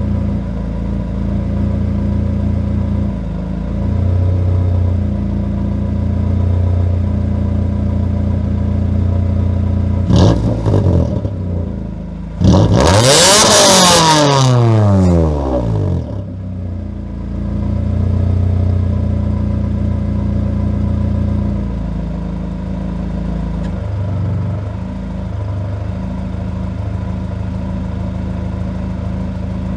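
1997 Honda Accord engine idling as it warms up, its exhaust flange and gasket just replaced to cure an exhaust leak. About ten seconds in the throttle is blipped once. A couple of seconds later it is revved harder, the pitch rising and then falling back to idle.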